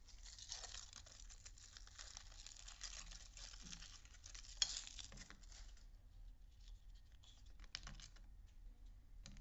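Faint crinkling and tearing of a thin foil wrapper being peeled off a chocolate surprise egg, with one sharp snap about halfway through. Near the end come a few separate clicks as the chocolate shell is pulled apart around the yellow plastic toy capsule.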